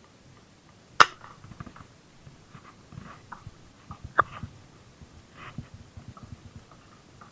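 A single sharp snap about a second in as a fishing slingshot is shot at fish below, followed by a smaller click about three seconds later and the rustle and knocks of handling the line and its bottle reel.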